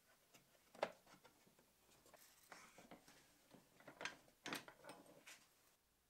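Faint clicks and knocks of hands handling a wooden box held in bar clamps, with a sharper knock about a second in and a cluster of knocks near the end.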